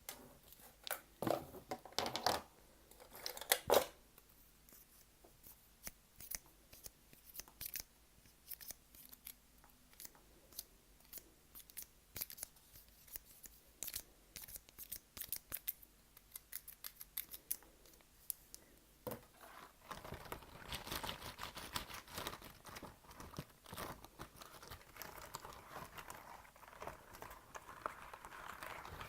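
Close-miked ASMR trigger sounds: a run of sharp, separate snips and clicks, then from about two-thirds in a denser, continuous crinkling and rustling.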